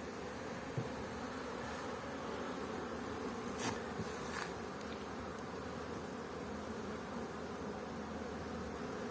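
Honeybees flying in numbers around the hives, a steady dense buzzing hum. Two brief scratchy noises break in near the middle.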